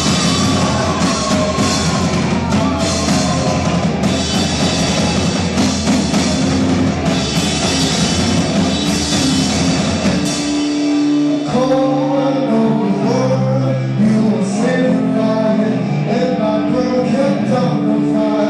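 Live rock band playing loud, with drum kit, guitar and singing. About ten seconds in, the drumming thins out and the singing comes through more clearly over steady bass notes and guitar.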